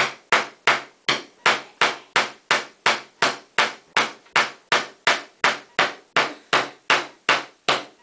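Small hammer head of an Eddie Bauer multi-tool tapping a little pin into a wooden board: a quick, even run of sharp knocks, about three a second.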